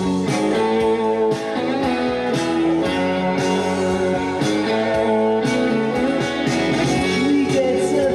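Rock song with electric guitar and a steady beat, playing from a vinyl record on a Technics MCS 6710 belt-drive record changer.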